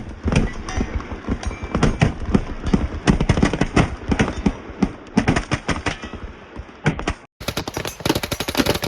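Machine-gun fire: rapid, overlapping shots from several guns on a firing line, cut off briefly about seven seconds in and then resuming.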